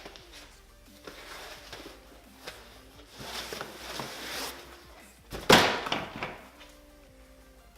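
Rustling and handling noises with one sharp knock about five and a half seconds in, over faint background music.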